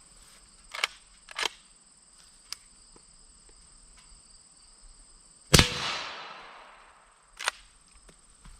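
A Henry lever-action .300 Blackout rifle with a suppressor fires one shot about five and a half seconds in, the report trailing off over about a second and a half. Short sharp clicks come twice early on and once about two seconds after the shot.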